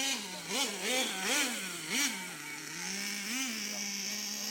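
Small nitro engine of a Redcat Racing Earthquake RC truck, blipped several times in quick succession over the first two seconds and again near the three-and-a-half-second mark, then settling to a steady idle.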